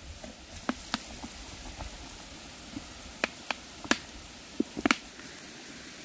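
Scattered sharp clicks and knocks, about seven in all, as an old glass jar is handled and stones trapped inside it are worked loose and knock against the glass, over a faint steady hiss.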